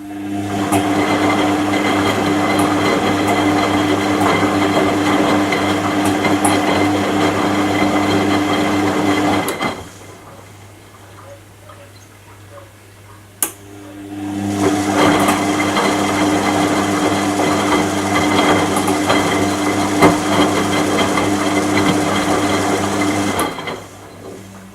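Washing machine motor turning the drum in two runs of about ten seconds. Each run starts with a click, builds up over about a second, holds a steady hum, then stops suddenly, with a pause of about four seconds between the runs.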